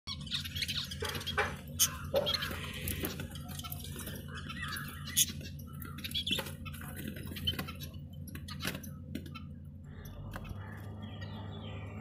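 Budgerigars chirping and chattering with sharp clicks over a low steady hum; about ten and a half seconds in the sound changes to softer, quickly repeated chirps.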